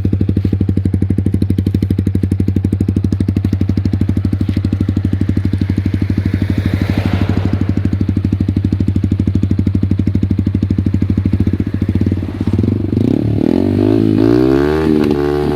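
Yamaha R15's 155 cc single-cylinder engine through an Akrapovic Shorty slip-on exhaust with its baffle removed, running at a steady lumpy beat, then revved up near the end, its pitch climbing and held high close to 10,000 rpm.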